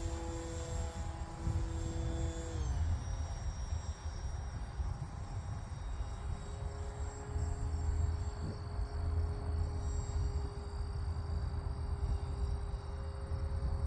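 Electric motor and propeller of a large RC plane whining steadily in the air, then throttled back about three seconds in, leaving a fainter whine. Wind rumbles on the microphone throughout.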